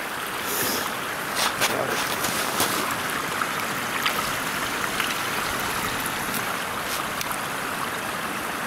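Steady rush of running water at a beaver dam, with a few light clicks and knocks over it from a pole probing the water.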